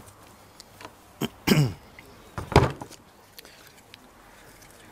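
A person clearing their throat and coughing, two short loud sounds a second or so apart, with faint clicks from small parts being handled.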